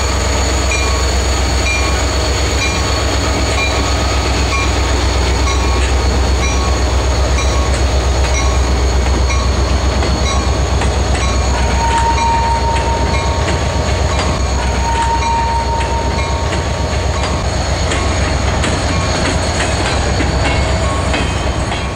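Freight train hopper cars rolling steadily past, a continuous low rumble of wheels on rail with some clatter. Two brief high squeals sound about halfway through.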